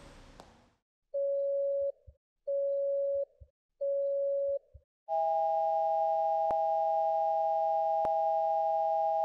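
Telephone line tones: three evenly spaced beeps at one pitch, then a steady two-note tone that runs on and cuts off abruptly near the end.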